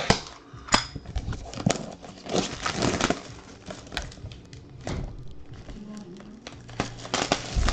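Irregular clicks and knocks with some rustling, from small objects being handled at a desk.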